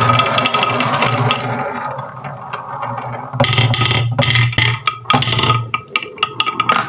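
Marbles rolling down wooden marble-run tracks with a steady rolling rumble. About three and a half seconds in, this turns into a quick run of sharp clacks and rattles as the marbles knock against the wood and each other.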